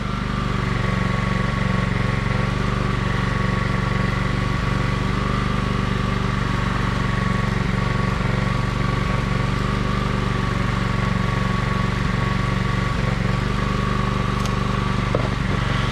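A steady machine hum, like an engine or motor running evenly, with no change in pitch or level.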